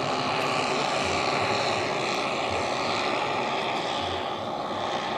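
The twelve O.S. four-stroke engines of a giant RC Dornier Do X flying-boat model running together in flight, a dense propeller drone that eases slightly near the end as the model moves away.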